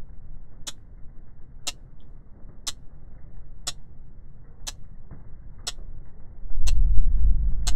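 Sharp ticks about once a second, like a clock, over a low rumbling drone that swells much louder about six and a half seconds in.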